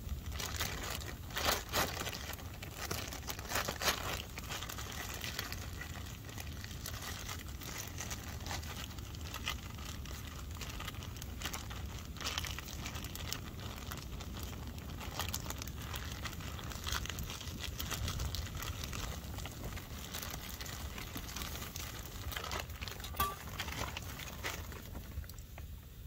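Plastic zip-top bag crinkling and rustling in irregular bursts as dough is squeezed and kneaded inside it by hand, over a steady low wind rumble on the microphone.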